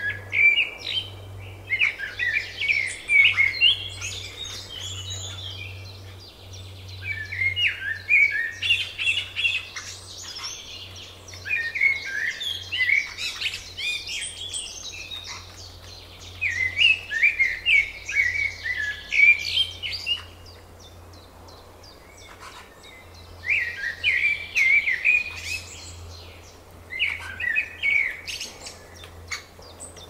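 A songbird singing repeated phrases of quick, chattering notes, each phrase a few seconds long with short pauses between, over a faint steady low hum.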